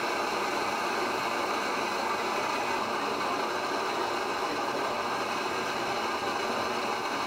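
Protos plant-oil pressure stove burner running with a steady hiss.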